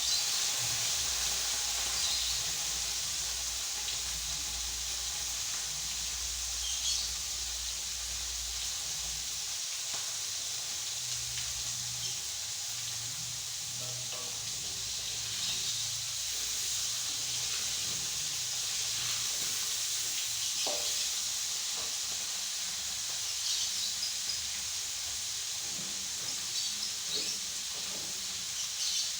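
Salted fish and tempe frying in hot oil in a pan, a steady sizzle.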